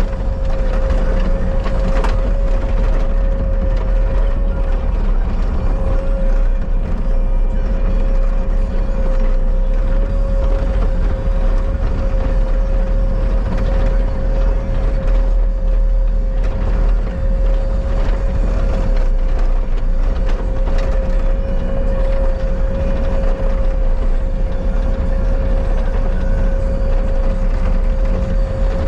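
Bobcat skid steer running steadily under work, its engine rumble carrying a constant whine and a light mechanical clatter.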